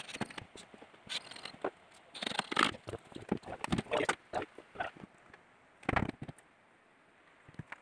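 Irregular knocks and clunks from handling a wooden speaker cabinet as it is stood upright and steadied, with a heavier low thump about six seconds in.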